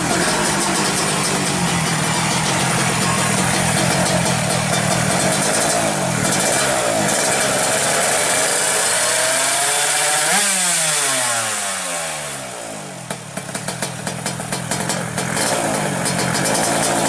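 Suzuki Satria 125cc two-stroke engine with an aftermarket racing exhaust, held at high revs while it is being tuned. The revs climb to a peak about ten seconds in, then drop away, and the engine splutters unevenly at low revs for a few seconds before picking up again.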